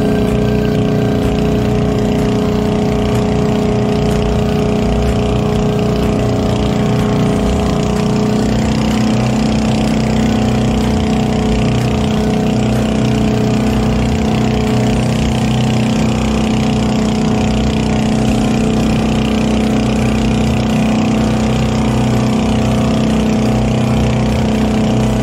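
Motorized outrigger boat's engine running steadily at cruising speed, with water rushing and splashing along the hull. The engine note shifts slightly about a third of the way through.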